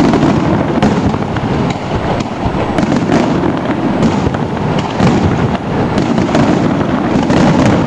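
Aerial firework shells bursting in a dense, continuous barrage: many sharp bangs and crackles overlapping, with no pause between them.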